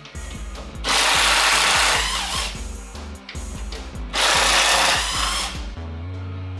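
A power tool run in two bursts of about a second and a half each, over background music.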